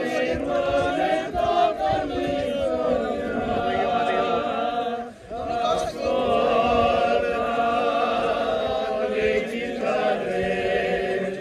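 A group of men singing a cappella in chorus, a traditional folk song with long held notes. The voices break off briefly about five seconds in, then start again.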